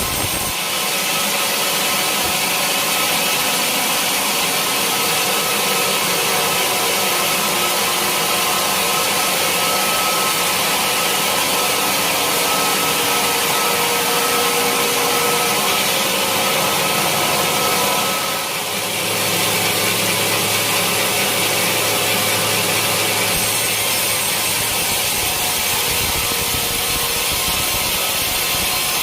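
Sawmill saw running and cutting through a teak log: steady, loud noise of the blade and its motor, dipping briefly about two-thirds of the way through.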